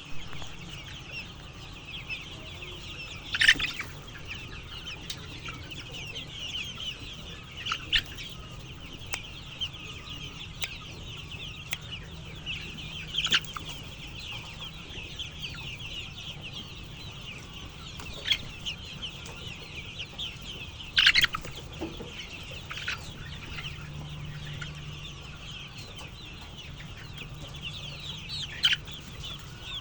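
A flock of chickens clucking and calling continuously in a dense chatter, with a handful of louder, sharper squawks standing out over it.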